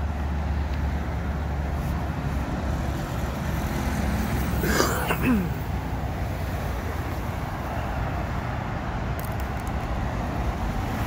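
Steady low rumble of road traffic, with a vehicle passing about five seconds in, its pitch falling as it goes by.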